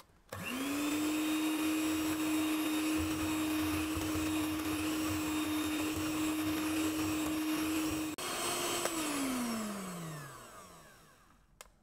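Electric hand mixer with wire beaters whirring at a steady high speed through sponge-cake batter of eggs, sugar and flour, beating it until thick and pale. It spins up quickly at the start and winds down with a falling pitch near the end as it is switched off.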